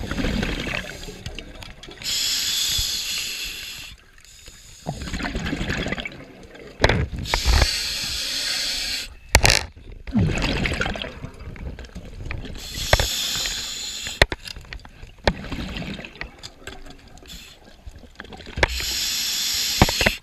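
Scuba diver breathing on a regulator underwater: hissing inhales alternate with bubbling exhales in a steady cycle of about one breath every five seconds, with scattered small clicks.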